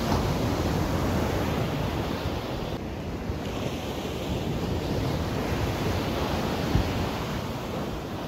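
Ocean surf breaking and washing up the beach, with wind buffeting the microphone; a single brief thump about seven seconds in.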